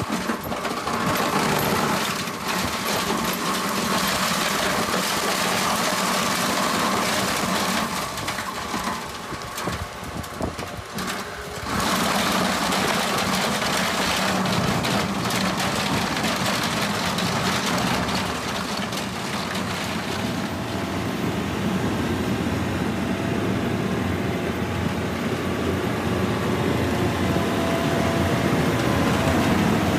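Tractor engine running a tractor-mounted stone crusher, a steady mix of engine noise and dense grinding clatter from the machine. The noise drops for a few seconds about a third of the way through, then picks up and holds steady.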